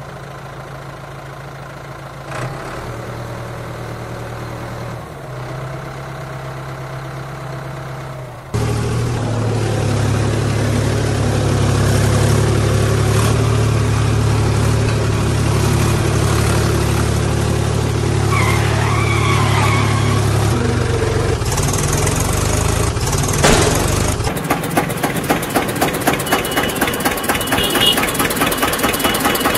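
Tractor engine sound effect, running and idling steadily; it gets louder about eight seconds in and turns to a quick, even chugging for the last few seconds.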